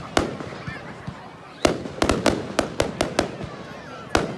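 Fireworks going off at a display: a single sharp bang, then, from about a second and a half in, a quick run of about ten bangs, and another bang near the end.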